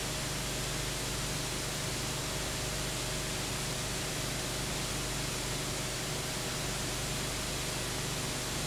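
Constant, unchanging hiss with a low steady electrical hum and a faint steady tone, and no other sound: the noise floor of a soundless old home-movie transfer.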